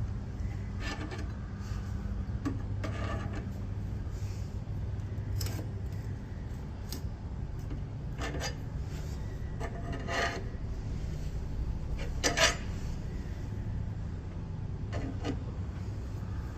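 Car jack being cranked up under the car: rubbing and scraping from the jack's screw, with a sharp click or scrape every second or two over a steady low hum.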